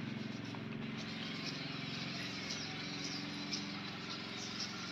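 An engine running steadily at a constant speed, heard as a low, even hum, with short high chirps over it.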